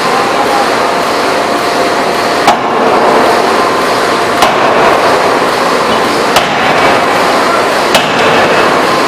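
Electro-hydraulic open die forging hammer striking the work, four sharp blows spaced about two seconds apart over a loud, steady factory noise.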